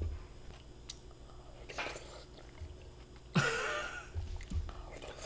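A person eating, with soft mouth and chewing sounds, and a louder brief sound about three and a half seconds in.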